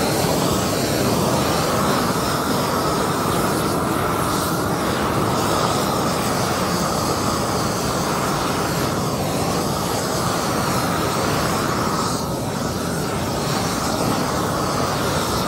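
Harbor Freight 340,000 BTU propane weed-burner torch running at full flame, a loud, steady jet-like rush, as it burns grass roots out of asphalt cracks.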